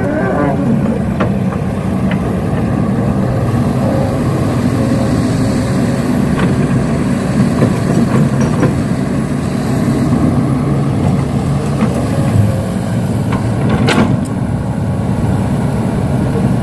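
Heavy vehicle engine running steadily, with a faint high whine above it and a sharp knock about 14 seconds in.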